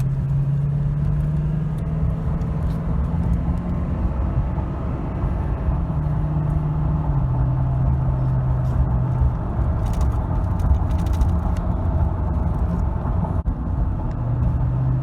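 2011 Toyota Tundra's 5.7-litre iForce V8 running warm while driving, with road noise, heard from inside the cab. The engine note shifts pitch a few times, about six and seven seconds in and again near the end. The owner hears a diesel-like clatter in this engine even when warm.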